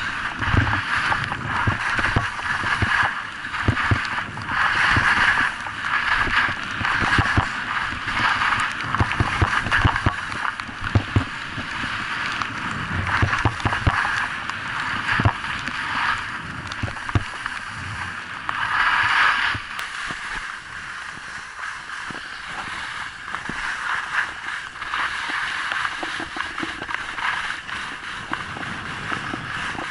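Skis scraping and carving on packed snow during a downhill run, a hiss that swells and fades irregularly, with wind buffeting the microphone in low rumbles.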